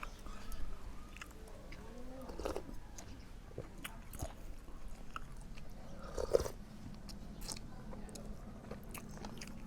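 A person chewing and biting food, with scattered small crunches and mouth clicks and a louder one about six seconds in.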